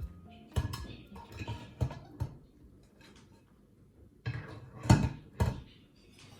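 Newly bought kitchenware being handled and set down: separate knocks and clinks, a few spaced ones in the first couple of seconds, then a louder group of three about four to five and a half seconds in.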